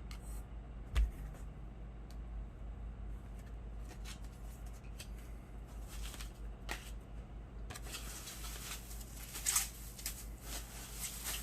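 Packaging being handled as a box is opened: scattered clicks and a thump about a second in, then a dense crinkling rustle of bubble wrap from about eight seconds in.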